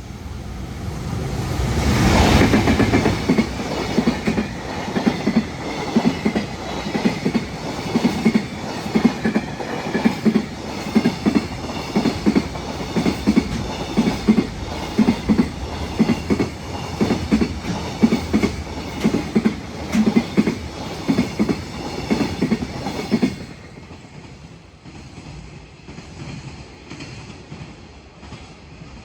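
Freight train headed by an EF210 electric locomotive passing close by: the locomotive goes past loudest about two seconds in, then the wagons' wheels give a long run of regular double clacks over the rail joints. The clacking stops abruptly about 23 seconds in as the last wagon clears, leaving fainter rumbling.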